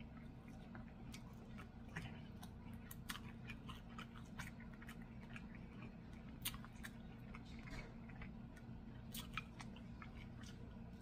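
A person chewing food close to the microphone: soft wet mouth clicks and smacks scattered throughout, a couple sharper ones a little past the middle and about three-quarters through, over a steady low hum.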